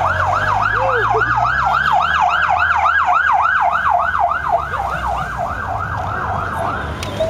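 Police motorcycle siren on a fast yelp, about four rising sweeps a second, loud as the bike passes and fading after about four and a half seconds. The low hum of its engine runs underneath, and another siren begins a slow rising wail at the very end.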